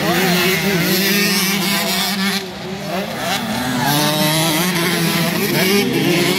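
Several motocross bike engines racing on a dirt track, revving up and down as the bikes pass, with a brief dip in loudness about two and a half seconds in.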